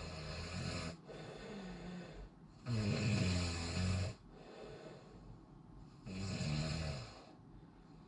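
A person snoring: three loud snores, one at the start, one about three seconds in and one about six seconds in, each lasting about a second, with softer breathing sounds between them.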